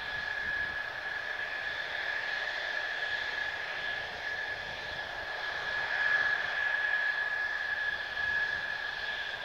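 Mitsubishi F-2 fighters' General Electric F110 turbofan engines running at taxi power: a steady high-pitched whine over a constant hiss, swelling slightly about six seconds in.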